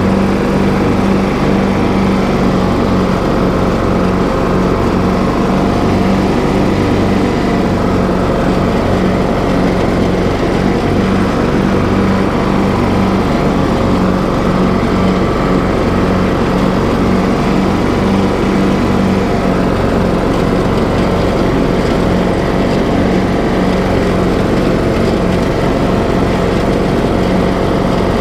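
Engine of a TroyBilt riding lawn mower running steadily as the mower drives across the lawn, an even, unbroken hum.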